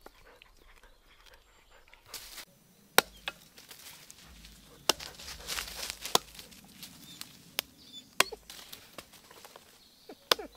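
Chopping: about seven sharp strikes at irregular intervals, with rustling between them.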